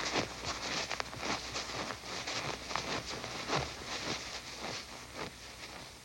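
Footsteps crunching on hard, dry snow at a brisk, uneven pace, growing a little fainter near the end.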